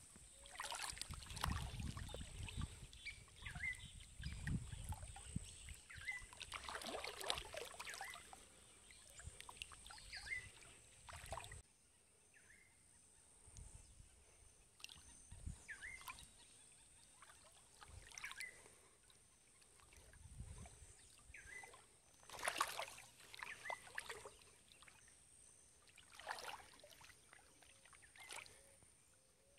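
Quiet paddle strokes from a small boat moving along a river: a splash and swish of water every one to three seconds, sparser for a while in the middle. A faint steady high tone runs behind it.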